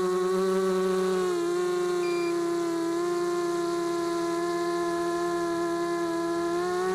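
Brushless motors of a mini quadcopter (Tiger MT1306-10 3100kv) spinning 5x3 two-blade propellers, a steady high-pitched whine picked up on the craft itself. The pitch dips a little just over a second in as the throttle eases, then holds.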